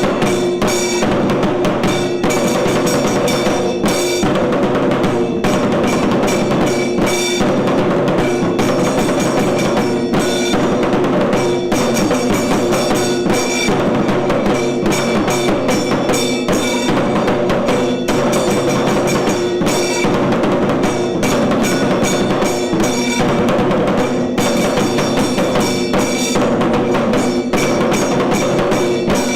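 Kailaya vadyam temple percussion ensemble playing: fast, dense drumming with cymbal strokes over steady held tones, keeping up without a break.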